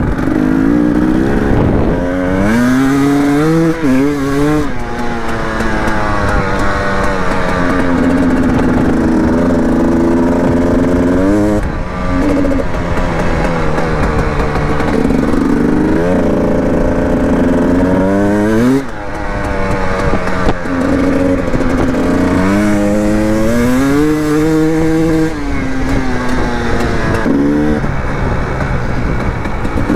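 Two-stroke 300 enduro motorcycle engine under way off-road, its revs climbing and dropping again and again with the throttle and gear changes.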